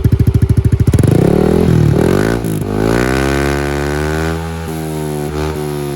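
Yamaha NMAX scooter's single-cylinder engine through a KOU power pipe aftermarket exhaust. It idles with a loud, pulsing beat, is revved up twice about a second in, then the revs fall slowly back.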